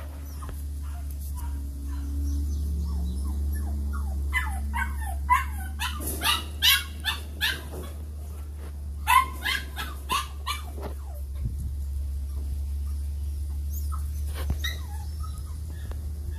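Podengo puppies play-fighting, giving quick high-pitched yips and whimpering barks in flurries, densest about four to eight seconds in and again around nine to ten seconds, then only a few after that.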